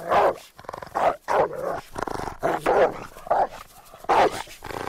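Large cartoon dog barking over and over, a run of short, loud barks with brief gaps between them.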